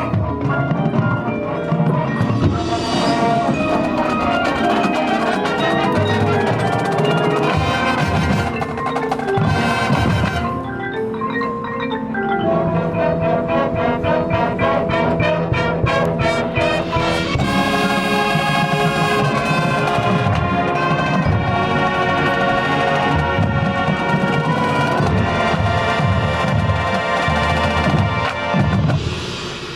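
Marching band playing its field show, with mallet percussion (marimba, xylophone and glockenspiel) prominent over brass and drums. The music falls away near the end.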